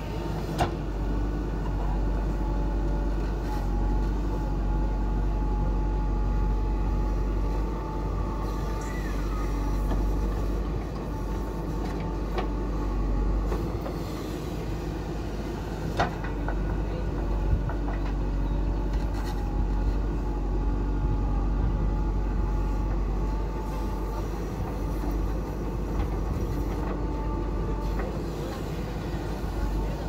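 JCB 3DX backhoe loader's diesel engine running under load while the backhoe digs stony soil, with a thin whine coming and going, and a few sharp clanks from the bucket working through the dirt.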